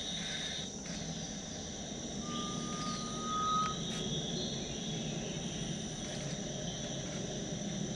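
Garnet pitta giving one long, slightly rising whistle a couple of seconds in, over a steady high drone of forest insects.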